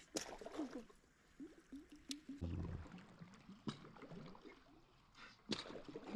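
A few sharp clicks or taps over a faint background.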